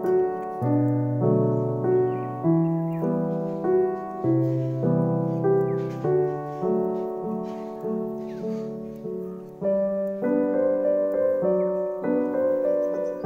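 Background music: slow, sustained piano-like keyboard chords, changing about every second or two.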